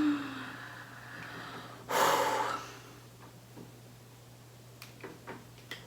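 A woman's heavy breath out, a single breathy puff about two seconds in, then a few faint clicks near the end, over a steady low hum.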